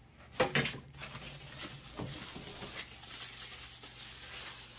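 Plastic packaging crinkling and rustling as small 3D-printer parts are unwrapped, with a brief voice-like sound about half a second in.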